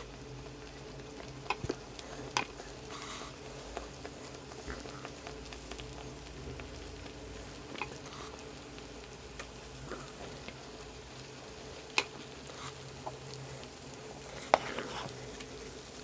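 Hot pot broth boiling at a steady bubble, over a low steady hum, with a few sharp clicks of utensils.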